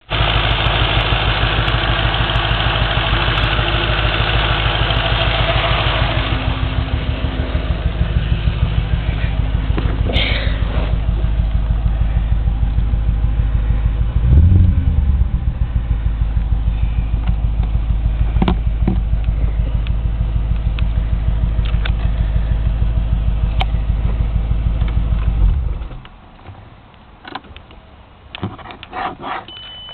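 Audi S4 4.2 V8 engine idling with a slight misfire. It briefly rises in pitch and loudness about halfway through, then is switched off near the end, leaving a few faint clicks.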